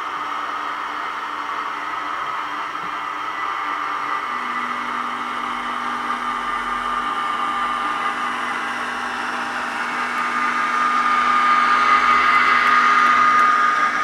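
Recorded Eurostar flange squeal and carriage air-conditioning hum, played from the DCC sound chips' speakers in a moving Hornby Eurostar model as it rounds a curve. The high steady squeal grows louder about ten seconds in.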